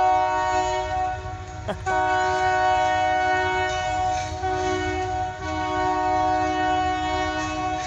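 Diesel locomotive air horn sounding a chord of several tones in long blasts run nearly together. There are short breaks about two seconds in and again about five and a half seconds in, and it cuts off near the end, over a low rumble from the train.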